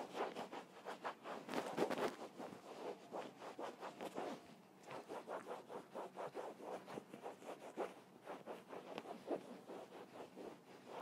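Microfiber cloth wiping over Louis Vuitton coated canvas in quick, repeated rubbing strokes, with a brief pause a little under halfway through. The cloth is buffing in interior detailing spray to refresh the canvas and give it shine.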